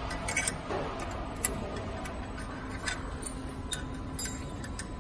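Irregular light metallic clicks and taps as hands handle the steel guide frame and forming mold of a paper box-forming machine, over a steady machine hum.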